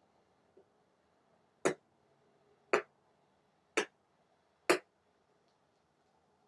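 Four sharp clicks about a second apart over a quiet room background.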